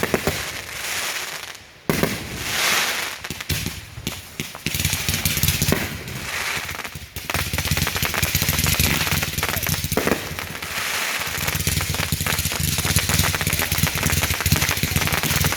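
Consumer fireworks going off: two sharp bangs in the first two seconds with hissing between them, then about ten seconds of rapid, continuous crackling and popping.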